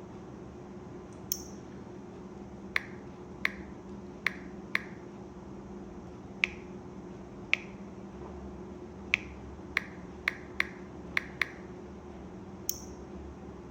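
A series of about fourteen sharp clicks at uneven intervals, most with a brief ring after them, over a steady low hum.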